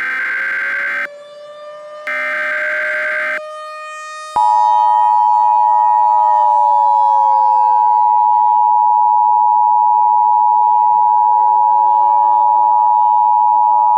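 Emergency Alert System tones: two short bursts of the digital SAME header data, then, about four seconds in, the steady two-tone EAS attention signal starts and holds. Underneath, an outdoor warning siren wails, its pitch slowly falling and then rising again.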